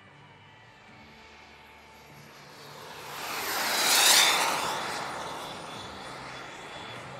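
Elite Aerosports Havoc model turbine jet making a fast pass. Its turbine whine swells to a peak about four seconds in, drops in pitch as it goes by, and fades away.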